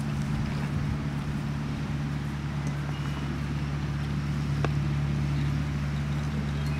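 A steady low mechanical hum, like a motor running, that holds the same pitch throughout.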